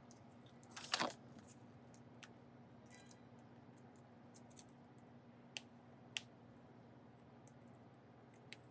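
Scattered small clicks and taps of tools and parts being handled at a repair bench, the loudest about a second in, over a steady low hum.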